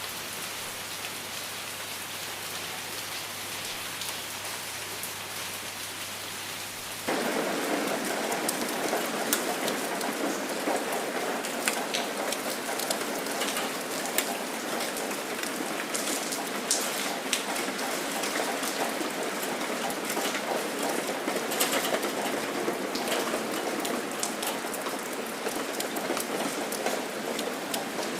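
Rain falling, with many separate drop ticks. For the first seven seconds it is lighter, with a faint steady low hum under it; then it turns abruptly louder and heavier.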